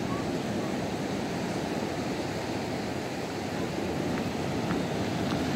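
Ocean surf washing onto a sandy beach, a steady rushing noise with wind rumbling on the microphone. A few faint ticks sound near the end.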